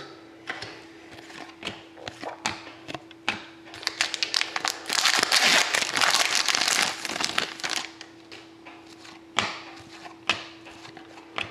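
Trading cards being flicked and slid through the hands with light clicks, then the foil wrapper of an Upper Deck hockey card pack crinkling loudly as it is torn open, about five seconds in, for some three seconds. A few more card clicks follow, over a faint steady hum.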